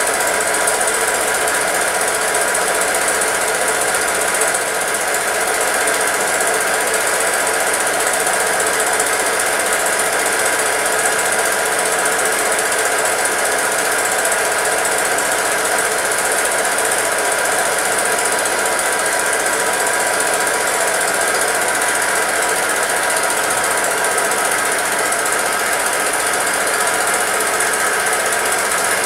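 Film projector running steadily, a continuous mechanical clatter from the shutter and film advance.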